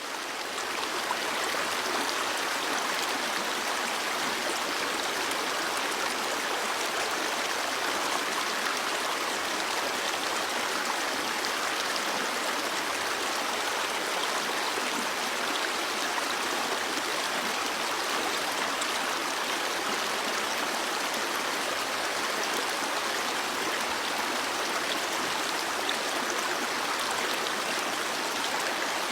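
Stream water flowing, a steady rushing and babbling that swells up over the first second and then holds even.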